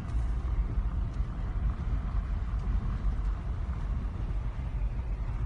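Steady low rumble of a car running, heard from inside the cabin.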